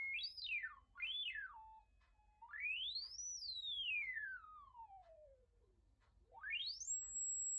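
Celestion HF1000 tweeter with a newly fitted replacement diaphragm playing a single sine tone that sweeps up and down several times, then rises and holds high near the end. The tone comes through clean, with no buzzing or rattle: the repair is sound.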